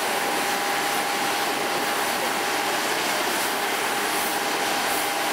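Steady drone of construction site machinery running at a constant level, with a steady whine held through it.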